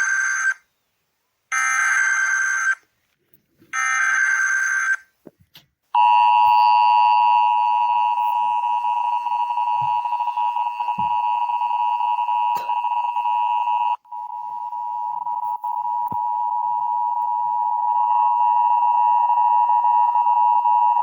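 Emergency Alert System broadcast opening: three short screeching data bursts of the SAME header, about a second apart. Then the steady two-tone EAS attention signal, which drops out briefly about two-thirds of the way through and comes back quieter, swelling up again.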